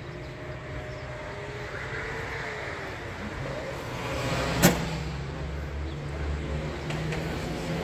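The steel door of a Zamyad pickup truck shuts with a single sharp bang a little over four and a half seconds in, over a low, steady engine hum.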